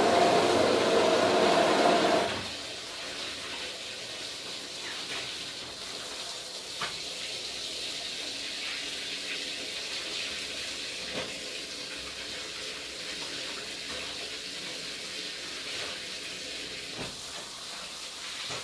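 Water pouring into a container while doing laundry by hand, cutting off about two seconds in; then a steady, quieter hiss of handwashing with a few light knocks and splashes.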